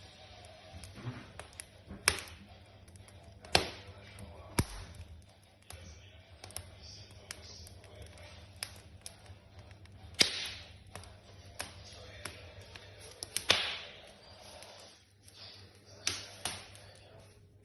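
Wood fire crackling in the open firebox of a brick stove-fireplace: irregular sharp pops and snaps, several of them much louder than the rest.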